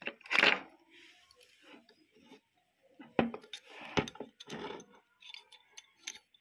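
Irregular metal clinks, knocks and scrapes as a clutch wheel is worked onto the cast-iron clutch assembly of a Juki bartack sewing machine with a bent metal rod, with sharp knocks about three and four seconds in.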